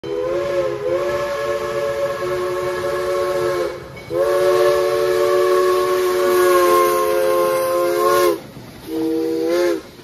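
Steam locomotive chime whistle sounding a chord of several tones in two long blasts and then a short one, each blast sliding into and out of pitch, over a steady hiss.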